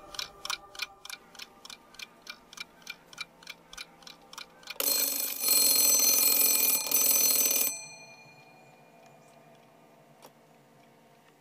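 Mechanical wind-up alarm clock ticking about four times a second, then its bell ringing loudly for about three seconds before cutting off sharply.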